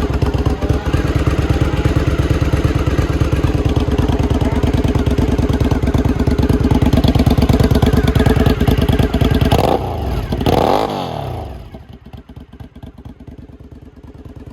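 Suzuki TL1000S's V-twin engine running steadily on its first start after an oil change. About ten seconds in it is revved once, rising and falling, and then the sound drops to a much lower level.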